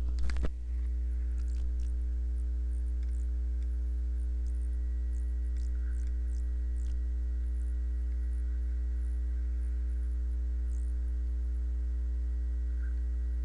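Steady electrical mains hum with evenly spaced overtones, an even drone that does not change, with a few faint high ticks now and then.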